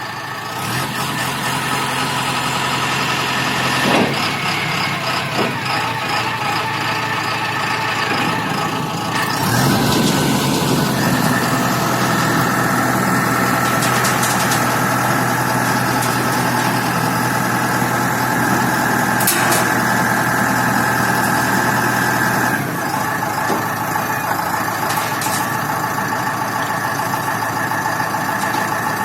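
Self-loading concrete mixer truck's diesel engine running steadily. About a third of the way in it picks up to a higher, louder speed, holds there, and settles back down near the end. A few sharp knocks come over it.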